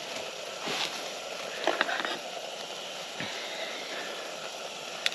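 Mushrooms frying in butter in a pot on a camping gas-canister stove, sizzling steadily, with a few light knocks and clicks, around one and two seconds in and again near the end.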